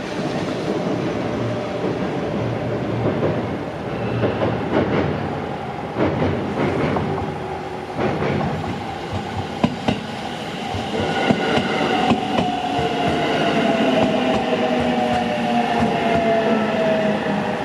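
Electric train on the Minobu Line running past, its wheels clacking over the rail joints. In the second half a whine comes in and falls slightly in pitch.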